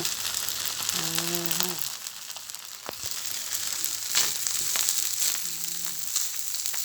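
Fried rice sizzling in a hot pan, a steady hiss broken by sharp clicks and scrapes as it is turned. The rice is frying to a golden, crisp finish.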